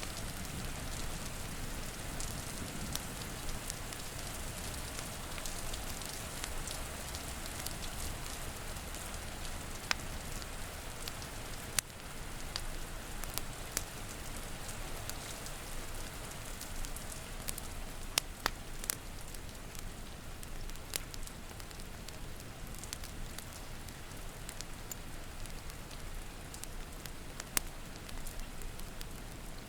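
Steady rain hissing, with a wood fire crackling over it in scattered sharp pops, a few of them standing out clearly.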